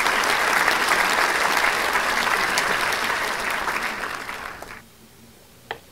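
A crowd applauding: dense clapping that fades out about four and a half seconds in. A single short knock follows near the end.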